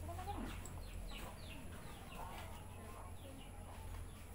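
Faint bird calls: many short, quick falling chirps scattered throughout, over a steady low hum.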